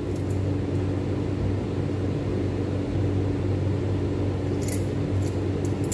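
Steady low hum of a running kitchen appliance or fan motor. A few light metallic clinks of measuring spoons being handled come near the end.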